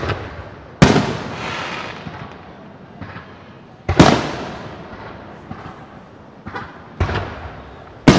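Aerial firework shells bursting overhead: about five sharp booms, each trailing off over a second or two.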